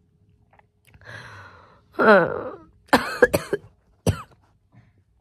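A woman sick with COVID coughing and clearing her throat in short bouts: a breathy one about a second in, then voiced coughs, ending with a single sharp cough about four seconds in. The coughs come from a throat that is sore and very dry from the infection.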